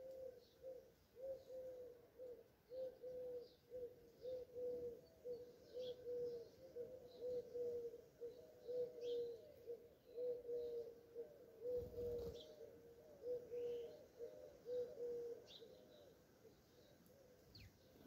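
Eurasian collared dove cooing in a long run of short, low repeated notes, with sparrows chirping faintly and sporadically above it. The cooing stops near the end.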